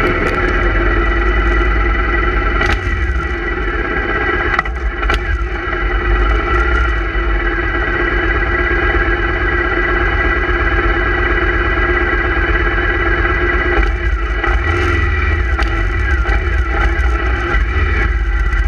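Motorcycle engine running at a low, steady idle, with other motorcycles' engines running around it. A few short clicks sound in the first few seconds.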